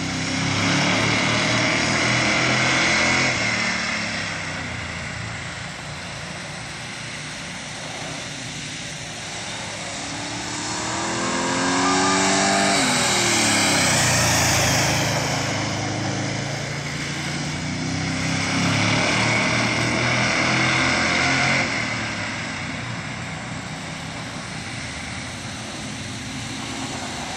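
1973 Oldsmobile Cutlass street stock with a 355 small-block V8 lapping the track at speed. The engine grows louder and fades again as the car circles. It is loudest on a close pass about halfway through, where its pitch rises and then drops as it goes by.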